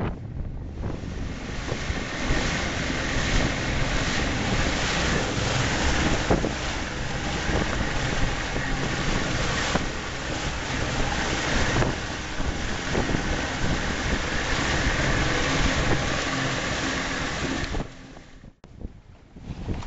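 Outboard motor running at speed on a small aluminium boat, with water rushing in the wake and wind buffeting the microphone. The sound falls away briefly near the end.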